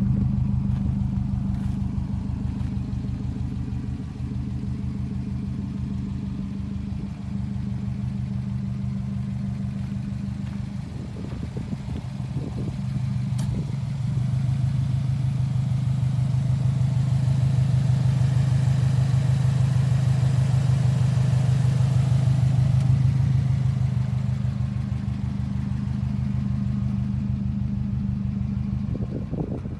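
Subaru WRX STI's turbocharged 2.5-litre flat-four engine idling steadily, with a low, pulsing exhaust note.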